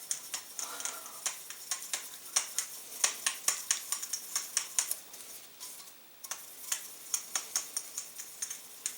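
A brush scrubbing the inside of a .22 suppressor's tube: quick scratchy strokes, a few a second, with a brief pause about six seconds in.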